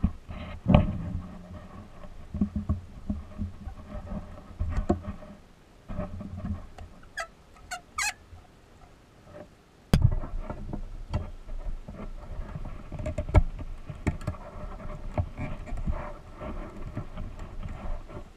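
Soft-faced mallet tapping and knocking on powder-coated pressed-steel toy truck parts, irregular knocks mixed with the clatter of the metal pieces being handled. A few short squeaks come about seven to eight seconds in.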